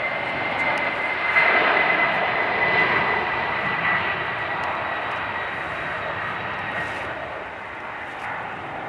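Boeing 767-300ER jet engines at takeoff power passing by: a loud roar with a high whine that sinks slightly in pitch. It is loudest a second or two in, then slowly fades as the jet moves away.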